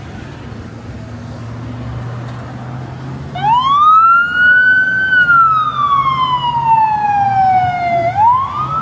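A siren wailing. It starts about three seconds in and rises quickly to a high pitch, holds briefly, then falls slowly over about three seconds and rises again near the end. Before it there is a steady low hum.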